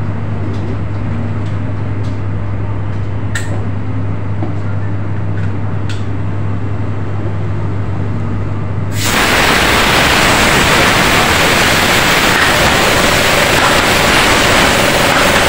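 Compressed air hissing loudly at the air compressor's hose fitting as the air stapler's line is connected. The hiss starts suddenly about nine seconds in and lasts about seven seconds. Before it there is a steady low hum with a couple of sharp clicks.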